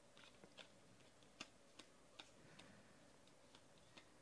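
Near silence with a handful of faint, irregular clicks as 2014 Panini Elite Extra Edition baseball cards are flipped and slid off a stack in the hands.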